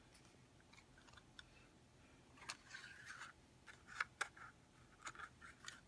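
Faint handling sounds: a strip of white cardstock rustling as it is slid into a hand-held tag punch, with a few light clicks, the clearest about two and a half and four seconds in.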